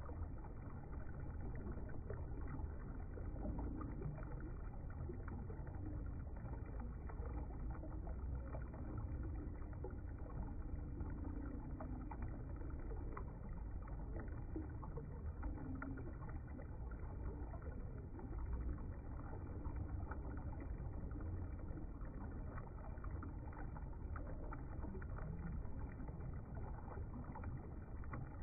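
Shallow river water running and rippling over stones, a steady flowing noise with faint crackles.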